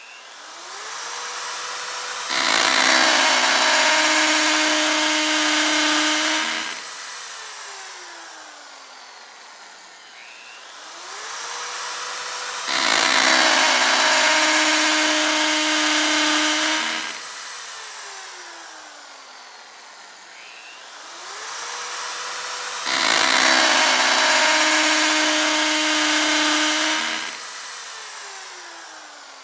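Electric drill spinning up with a rising whine, then biting into material for about four seconds with a loud grinding, its pitch dropping under load, and winding down. This happens three times, about ten seconds apart.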